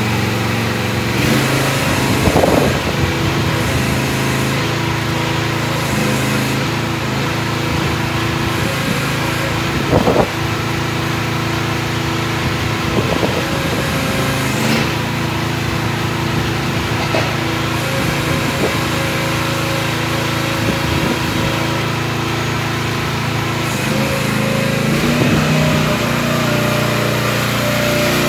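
Vicsec VC13 mini excavator's 13.5 hp Briggs & Stratton engine running steadily under load as the machine tracks and works its arm, with occasional clunks, the loudest about ten seconds in.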